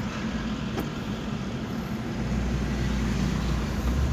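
Toyota LiteAce van driving, heard from inside the cab: a steady engine and road drone whose low rumble grows louder about two seconds in.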